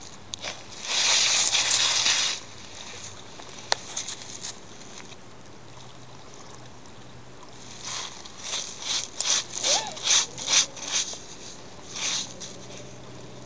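A dog nosing hard into beach pebbles: a longer noisy scrape and rattle of stones about a second in, then a quick run of short, sharp sniffs and snuffles near the end.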